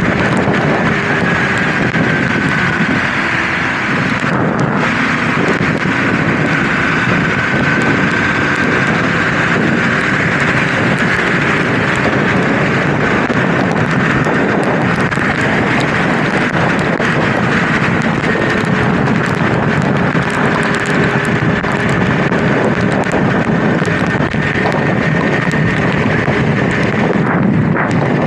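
A riding motorcycle with wind rushing over the microphone and a steady rush of road noise. Underneath, the Kawasaki KLE 250's single-cylinder engine runs at a steady speed, with a faint whine that drifts slightly in pitch.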